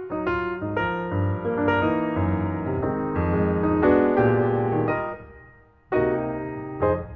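Background piano music, a tune of notes and chords; it fades almost to silence about five seconds in and starts again abruptly a second later.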